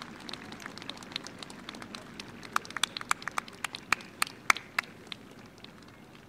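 Scattered hand claps from spectators, building to a short ragged patter of applause in the middle and then dying away, over a faint low crowd murmur.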